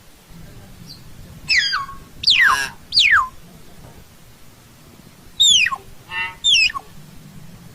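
Common hill myna calling: loud, steeply falling whistles mixed with short harsh, nasal notes, in two bouts with a pause of about two seconds between them.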